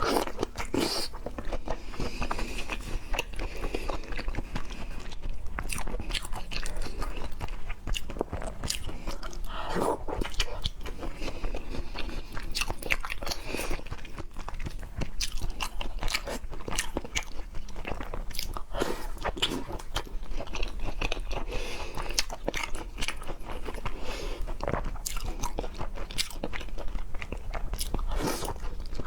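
Close-miked mukbang eating of raw seafood: chewing and biting, with many short crunchy clicks throughout.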